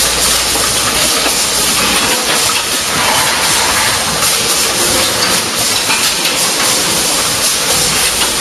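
Automatic carton packaging line running: a steady loud hiss of machinery with faint irregular clicking.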